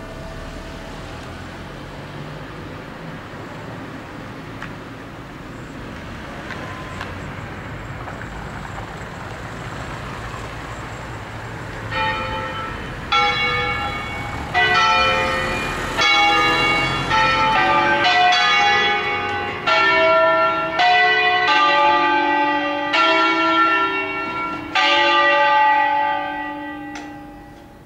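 Five church bells cast by Angelo Ottolina in 1947, rung in the Bergamasque 'concerto solenne' style. After about twelve seconds of quieter background noise, the bells strike a melodic run of about a dozen notes at different pitches, and the ringing dies away near the end.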